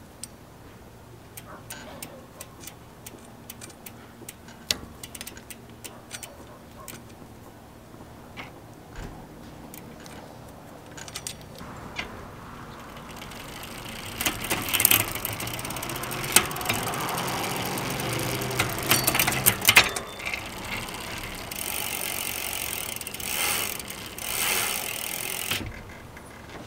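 Bicycle chain work: for the first half, scattered sharp clicks as a chain tool presses a pin into the chain. From about halfway, the chain runs over the rear cassette and through the Shimano Deore XT rear derailleur as the drivetrain is turned, a steady whirring with clicks and rattles, before it stops just before the end.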